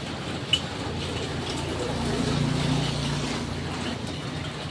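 Low, steady engine hum of a motor vehicle, growing a little louder and falling back again about two to three seconds in, with a faint click about half a second in.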